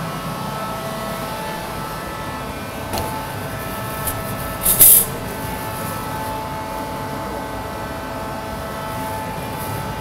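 Steady drone of a commercial kitchen's exhaust hood and gas wok burners, with a steady hum under it. A short, loud hiss about five seconds in, with two fainter ones shortly before.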